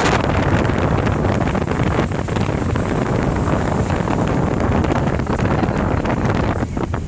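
Strong storm wind buffeting the microphone: a loud, steady rush of noise with a heavy low rumble.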